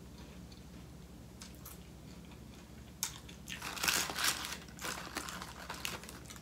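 Faint chewing, then from about three seconds in a burst of paper crinkling and rustling as a hand reaches into a paper-lined basket of chicken wings and picks one up.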